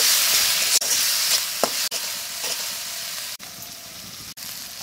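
Spice masala frying in hot mustard oil in a kadai, sizzling steadily while it is stirred, with short scrapes on the pan. The sizzle drops lower for the last second or so.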